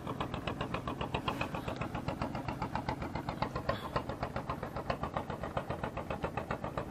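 An engine idling with a steady, rapid chugging beat.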